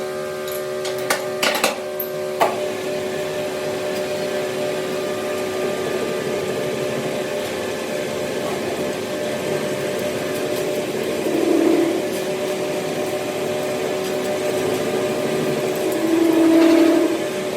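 A workshop machine running with a steady hum, with a few sharp knocks about one to two and a half seconds in and two louder swells of sound, one near the middle and one near the end.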